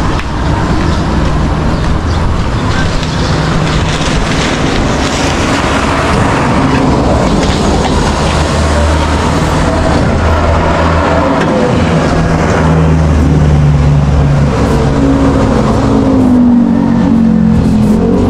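A motor vehicle's engine running, with road and wind noise; its tone rises in pitch in the last few seconds as it speeds up.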